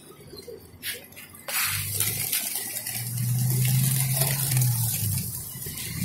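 Rushing flutter of a large flock of rock pigeons' wings, starting suddenly about a second and a half in. A low steady hum sounds through the middle for about two seconds.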